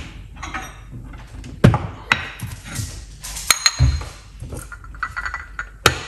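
Several clinks and knocks of kitchenware as a glass teacup and saucer and a stainless saucepan are handled and set down on a ceramic hob, a few of them ringing briefly.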